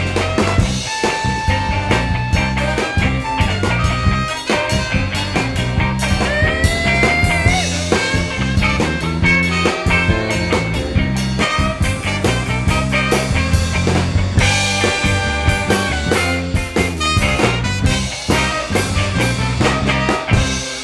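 A band playing an instrumental break of a New Orleans-style song, with a steady bass and drum beat under a lead melody whose notes bend and slide.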